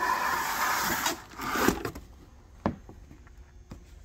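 Cardboard box being slid and opened: cardboard scraping and rubbing against cardboard for about two seconds, then a few light knocks and taps as the flaps and packaging are handled.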